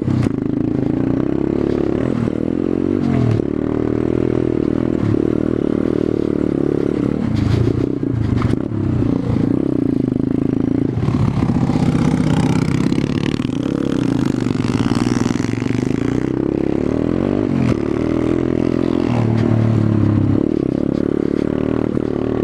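Small single-cylinder pit bike engine idling, its pitch wavering up and down, with some scraping and clattering.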